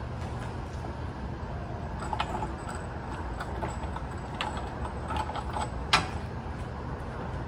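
Steel floor jack clinking and knocking as it is rolled and lined up under a jack point: scattered light clicks, with a sharper, louder click about six seconds in, over a steady low background hum.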